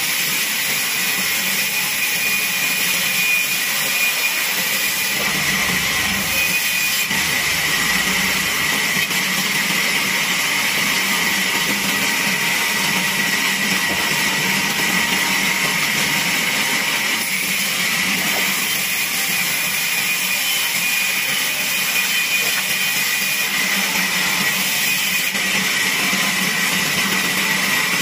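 Vertical band saw running steadily as a wooden board is fed through it and cut lengthwise, with a constant high tone over the steady noise of the blade.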